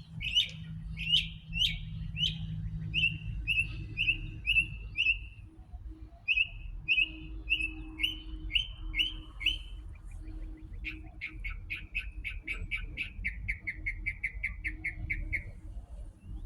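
A songbird calling, repeating a sharp chirp about twice a second, then switching about two-thirds of the way through to a fast trill of rapid chirps.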